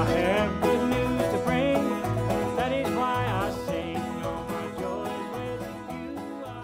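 Background music: an upbeat country-style tune with plucked strings, fading out towards the end.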